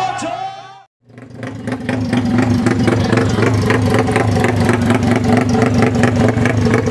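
After a short cut to silence about a second in, a Yamaha MX King motorcycle engine runs steadily with a rapid, even chopping pulse from its exhaust, the helicopter-like sound the bike is shown for.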